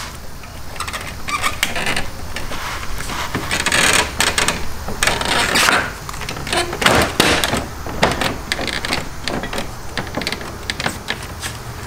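A scatter of plastic clicks, taps and rattles as an aftermarket gloss-black kidney grille is lined up and pushed into a BMW F30's front bumper, its mounting tabs snapping into their holes.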